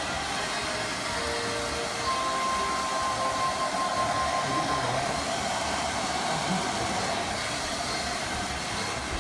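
Handheld hair dryer blowing steadily as hair is dried. A faint high tone sounds for a few seconds near the middle.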